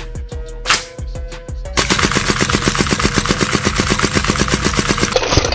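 Background music with a beat, then from about two seconds in a shell-ejecting Rare Arms airsoft M4 firing full-auto: a fast, even string of shots, about nine a second.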